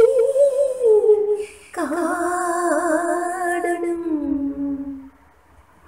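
A woman singing a Malayalam children's poem in slow, drawn-out notes. One held phrase ends about a second in, then a long, wavering phrase follows, sinking in pitch and fading out near the end.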